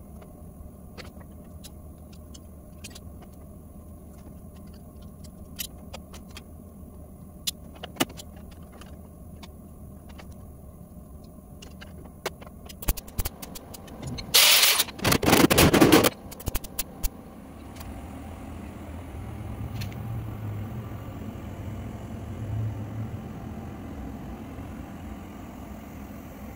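Scattered clicks and taps of tools on sheet metal. About halfway through comes a loud, crackling burst of a second and a half, broken into short pulses, from MIG tack welds on the steel louver panel. A low hum follows.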